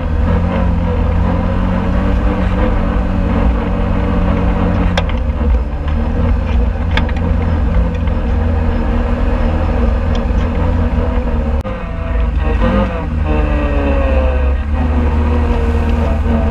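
Can-Am Outlander ATV engine running while riding a dirt trail, its pitch rising and falling with the throttle between about twelve and fifteen seconds in. Two short sharp clicks come about five and seven seconds in.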